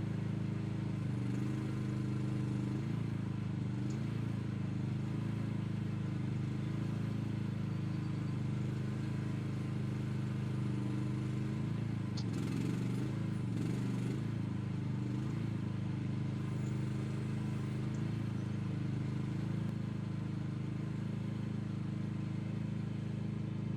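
Mini excavator engine running steadily, its note shifting briefly about a second in and again around the middle.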